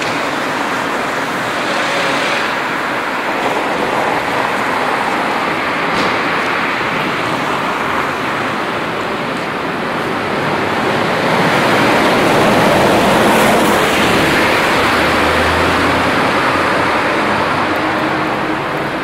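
Street ambience in a shopping arcade: a steady wash of traffic-like noise that swells for a few seconds a little past the middle.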